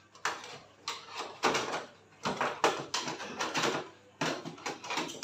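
Plastic back cover of a TV being pried and lifted off its frame: snap-in clips popping loose and the plastic shell clattering and scraping, in a string of irregular clicks and knocks.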